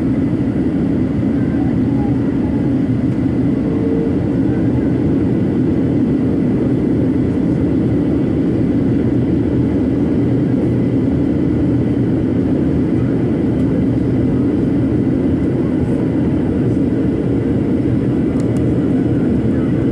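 Steady in-flight cabin noise of a Boeing 737-800 heard from a window seat: an even, unchanging rumble of engines and airflow.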